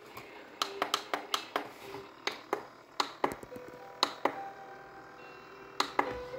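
Buttons on a portable DVD player pressed over and over: about fifteen sharp clicks, rapid at first and then more spaced out, with two last presses near the end. Faint steady tones come in partway through.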